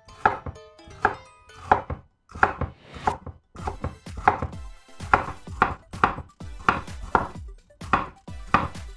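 Chef's knife slicing bitter gourd thinly on a wooden cutting board, a steady run of knocks as the blade hits the board, about two a second.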